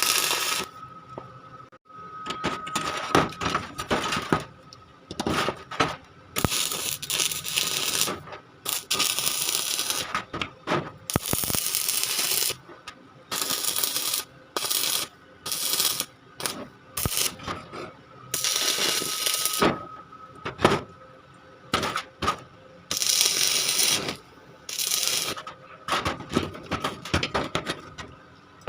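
Metalworking on steel: repeated short bursts of hissing noise, each a second or two long, with metallic clinks and knocks between them.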